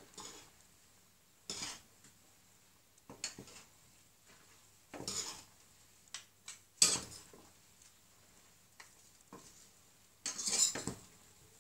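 Pasta being tossed and stirred in a stainless steel saucepan: utensils scraping and knocking against the pan in separate strokes every second or two, louder about seven seconds in and near the end.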